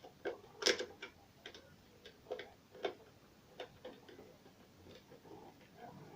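Light, irregular clicks and taps of small parts being handled, with the loudest click under a second in.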